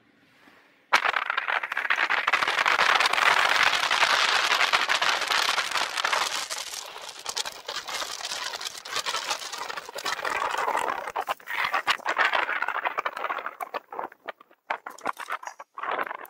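Dense crackling, rattling hiss of riding noise on a camera mounted on a moving bicycle, from wind and road vibration. It starts suddenly about a second in and breaks up into short separate bursts near the end.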